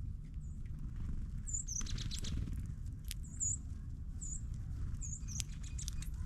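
Small songbirds at a ground feeder giving about five short, high chip calls, with scattered sharp clicks and taps of birds feeding on the seed and a brief rustle about two seconds in, over a steady low rumble.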